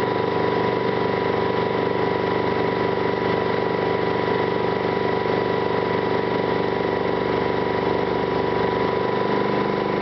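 M715 fire truck's engine running steadily at a constant speed, driving the pump that feeds a hose spraying water.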